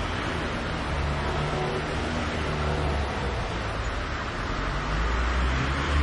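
City street ambience: a steady wash of road traffic with a low engine rumble, getting somewhat louder near the end.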